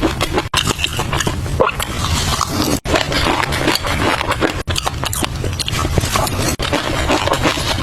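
Close-miked ASMR eating sounds of caviar: wet chewing and biting with many small crackling clicks, broken by brief gaps every couple of seconds.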